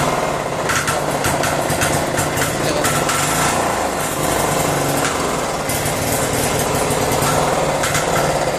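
A small engine running steadily, with a few short clicks and knocks over it.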